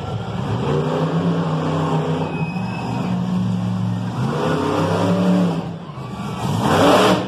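Monster truck engine running and revving, its pitch rising and falling in two long swells, with a louder, rougher burst near the end.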